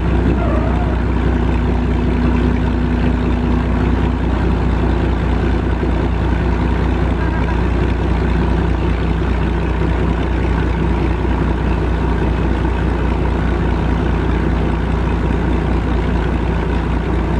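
1917 Holt 120 crawler tractor's big four-cylinder engine running steadily, a loud low even drone with no change in speed.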